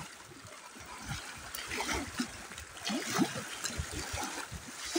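Small waves lapping and splashing irregularly against rocks at a lake's edge.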